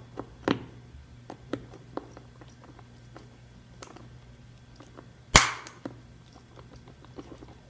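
Torque wrench working on the bolts of a bike shoe cleat, tightening them to 5 newton-metres: scattered light metal clicks, then one sharp, much louder click a little past five seconds in.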